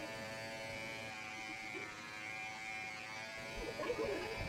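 Cordless electric hair clippers running with a steady buzz as they cut a boy's hair.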